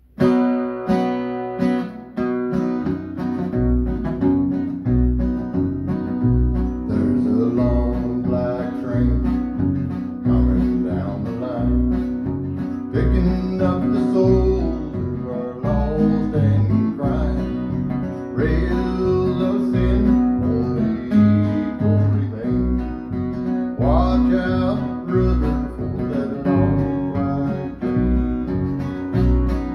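Acoustic guitar strumming a country gospel tune, joined about three seconds in by a plucked upright bass keeping an even beat, with a man singing over it.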